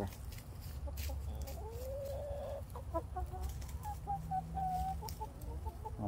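Pet hen whining: one drawn-out note rising slightly about two seconds in, then a run of short, higher whiny notes.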